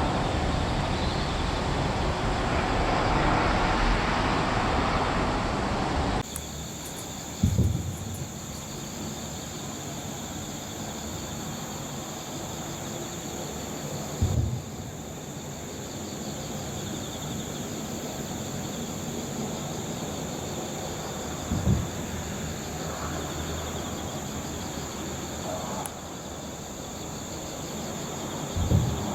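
A passing vehicle's broad rumble for the first six seconds, cutting off abruptly. Then a steady chorus of crickets trilling high, with four short low thumps about seven seconds apart.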